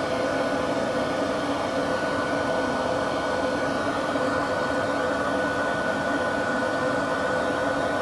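Professional dog grooming dryer blowing steadily: a constant rush of air with a steady whine.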